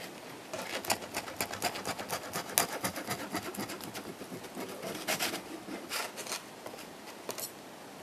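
Crunchy chewing of a salami pizza slice close to the microphone: a quick run of crackles, thickest in the first half, then a few short bursts that thin out near the end.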